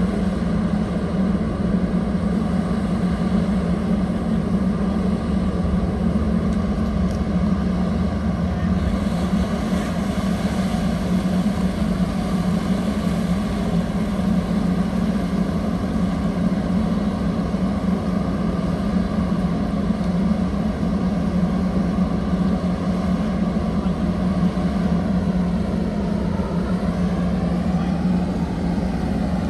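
Motor yacht's engines and propellers running at low power as it manoeuvres astern into a berth: a steady drone with a deep hum. A rushing hiss of churned water joins about nine seconds in, and near the end the engine pitch dips and then rises again.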